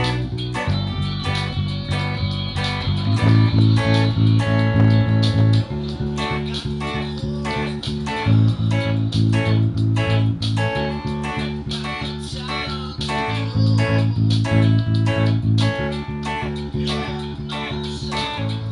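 Electric bass and electric guitar playing a reggae-rock song along with a CD, the bass line stepping to a new note about every two and a half seconds under steady rhythmic guitar chords. The bass is an Ernie Ball Music Man Sterling through an Ampeg SVT Classic with a 6x10 cabinet, the guitar a Fender Stratocaster through a Hughes & Kettner Duotone, and the low E notes distort in the cheap camera's microphone.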